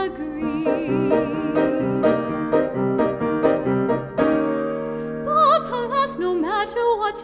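Grand piano playing a short interlude of repeated chords and notes. About five seconds in, a female classical voice comes back in, singing with vibrato over the piano.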